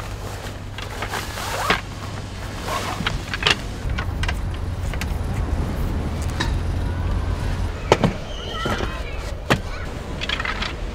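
A wooden folding roll table being unpacked: the fabric carry bag rustling, then the wooden frame legs and rolled slats clacking and knocking as they are pulled out and opened, with several sharp wooden knocks.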